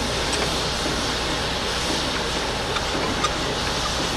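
Belt-driven saw bench running, a steady mechanical noise with a few faint clicks.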